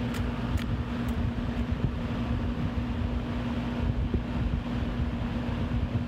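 Vintage Eskimo 20-inch box fan (model 2020) running on high: a steady rush of air from its blades over an even electric motor hum.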